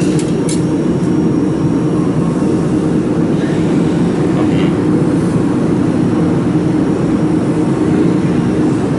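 Steady machine hum of a laser welding machine's cooling fan and water-cooling system running, with a couple of faint clicks right at the start.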